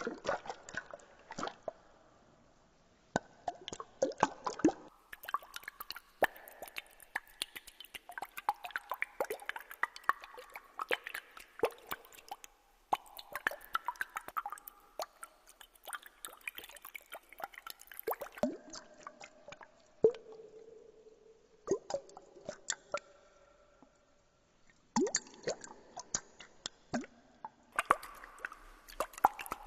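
Water dripping and plopping: many quick drops, some with a short ringing pitch, in bursts that start and stop abruptly every few seconds.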